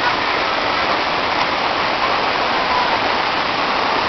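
Waterfall rushing and splashing: a loud, steady roar of falling water with no breaks.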